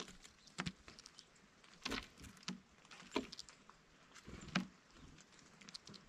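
Faint, irregular taps and clicks from birds working a seed feeder, about a dozen over a few seconds, some with a soft low knock.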